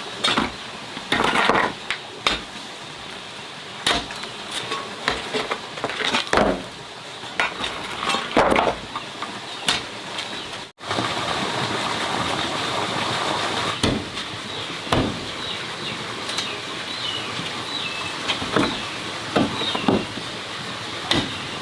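Irregular knocks and clinks of objects being handled. After a sudden break about eleven seconds in, a steady rushing hiss runs beneath them.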